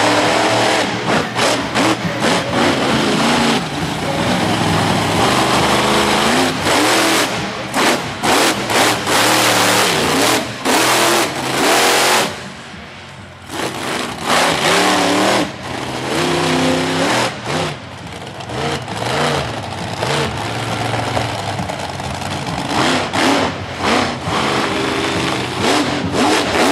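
Monster truck engine revving hard over and over, its pitch rising and falling as the truck is driven through jumps and wheelies, with a short lull about halfway through.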